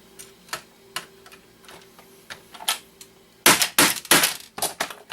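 Screwdriver and hand tools clicking and scraping against a stripped, rusted screw in a plastic console case. A few scattered clicks come first, then a quick run of loud clacks about three and a half seconds in.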